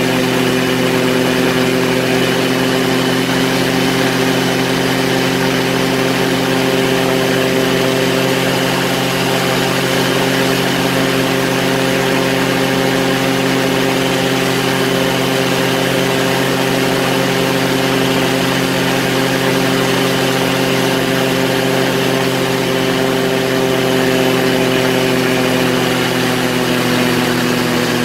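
Quicksilver ultralight's engine and propeller droning at a steady, unchanging pitch in level flight, over a constant hiss of rushing air.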